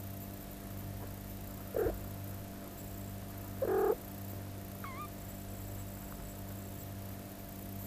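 Cats in a nest box with two-week-old kittens: two short mews about two and four seconds in, the second louder and longer, then a faint high squeak about five seconds in. A steady low hum runs underneath.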